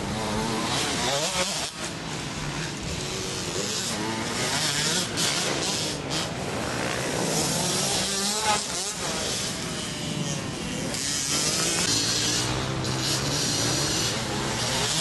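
Dirt bike engines running on a motocross track, their pitch rising and falling again and again as the riders rev through the course.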